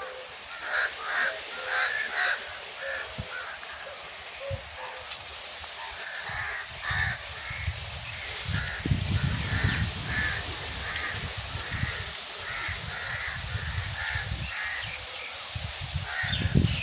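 Crows cawing over and over: a quick run of caws at the start, then a long, regular series of caws from about six seconds in. Underneath is a steady hiss of outdoor background, with low rumbles around the middle and near the end.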